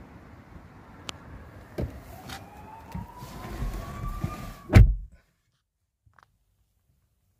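In the Opel Grandland's cabin: a few sharp clicks, then a small electric motor whining and slowly rising in pitch for about two seconds, ending in one heavy thump. Right after the thump everything goes quiet.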